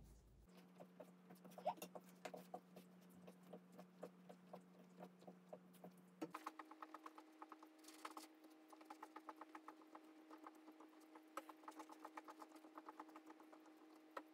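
Faint, quick soft taps and clicks of hands folding and pressing bread-roll dough on a floured silicone baking mat, several a second.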